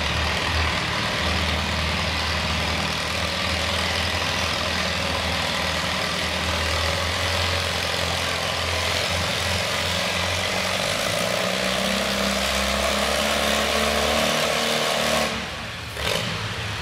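Classic pulling tractor's engine running steadily at low speed, easing off briefly about fifteen seconds in.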